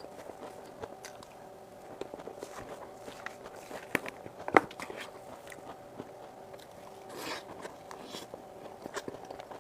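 Close-miked eating sounds from whipped cream cake: wet mouth clicks and smacking, with one sharp, much louder click about halfway through.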